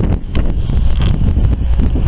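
Wind buffeting the camera's microphone in loud, uneven gusts of low rumble.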